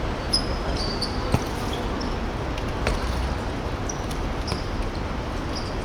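A korfball bouncing on an indoor court floor, with a few sharp impacts and short high squeaks over the steady noise of the hall.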